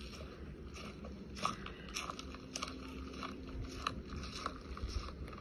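Handling noise: irregular sharp clicks and crunchy crackles, a few each second, over a low rumble.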